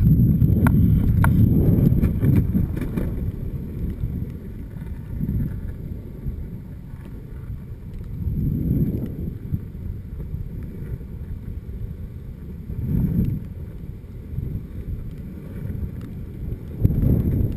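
Pintail longboard's wheels rolling over asphalt with wind buffeting the camera microphone, a low rumble that swells and eases several times. A few sharp clicks sound about a second in as the board crosses from the driveway onto the sidewalk and street.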